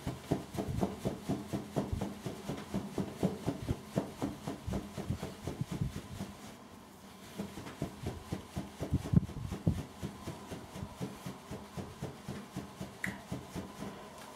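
Quick, irregular soft taps and knocks of hands handling things, several a second and sped up, thinning out over the last few seconds.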